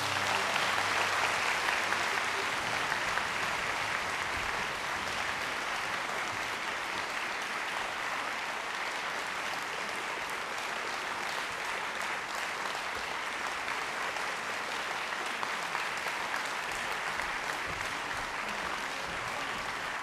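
Concert-hall audience applauding steadily, a little louder in the first couple of seconds, with no music playing.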